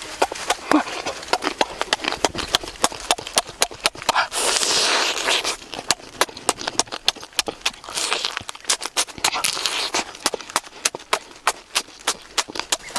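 Close-up mouth sounds of a person eating lobster meat: rapid, wet lip smacks and chewing clicks, with a longer noisy slurp about four seconds in and a shorter one near eight seconds.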